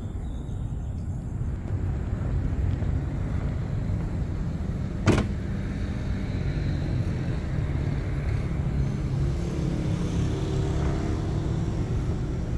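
Road traffic on a city street: cars passing with a steady low rumble. A single sharp click stands out about five seconds in.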